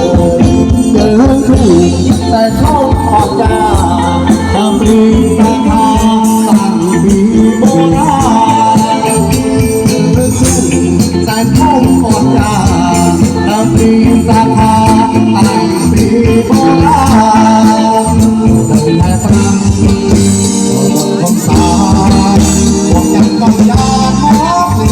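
Khmer romvong dance music with a steady beat and a melody line over it, without clear singing.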